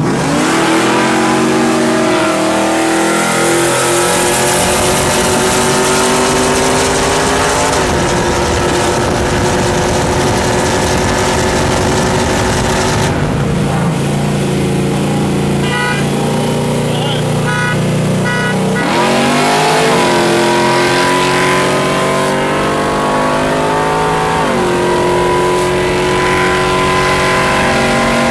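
Car engines pulling at full throttle side by side, the pitch climbing through each gear and dropping at the shifts, several times.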